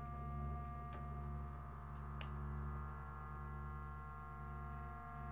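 Drone sound-art piece: a steady low hum with several sustained pure tones held above it, a faint click about a second in and a brief high chirp just after two seconds.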